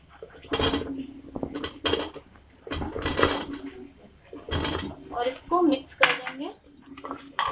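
Raw potato chunks tipped from a bowl into an aluminium pressure cooker of keema, with several sharp clatters of the ladle and bowl against the pot.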